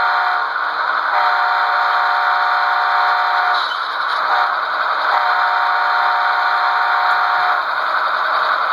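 Model-railroad sound decoder playing a diesel locomotive's multi-chime air horn through the model's small speaker. A long blast ends about half a second in, then come a long blast, a short one and a final long one, the grade-crossing pattern, over a steady hiss.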